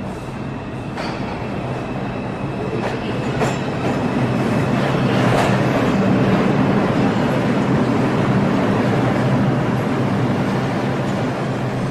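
Subway train running alongside the platform: a loud, steady rail rumble with a low hum and a few clacks. It grows louder toward the middle and eases slightly near the end.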